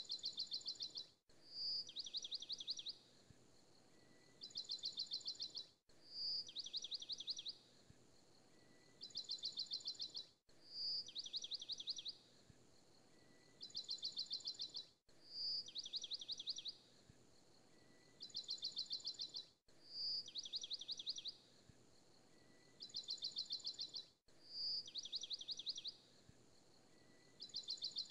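Looped recording of birdsong: a short high chirp followed by two rapid trills, the same phrase repeating identically about every four and a half seconds.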